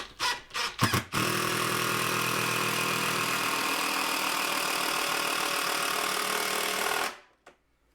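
Power drill driving a screw into framing lumber: a few short starts in the first second, then a steady run for about six seconds that stops abruptly near the end.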